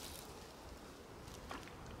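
Faint lakeside outdoor ambience, a soft even hush of air and water, with one small click about one and a half seconds in.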